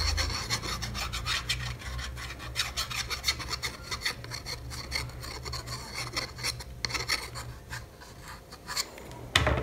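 Irregular scratchy rubbing as the nozzle of a tube of liquid glue is drawn along a headband and fingers press ribbon down onto it.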